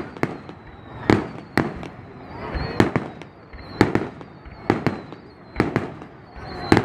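Fireworks going off in a steady run of about a dozen sharp bangs, roughly one every half second to a second, with a faint high whistle between them.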